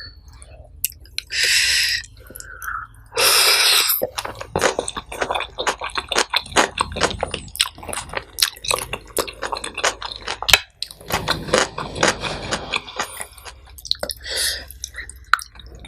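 Close-miked chewing of nasi pecel, rice and vegetables in peanut sauce: a dense run of wet mouth clicks and crackles, with two short loud hissy bursts in the first four seconds and another near the end.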